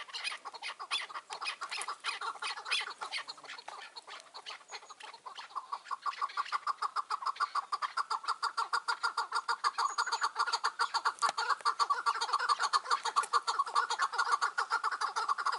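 Chukar partridge calling: a long rapid series of short clucking notes that becomes denser and louder from about six seconds in.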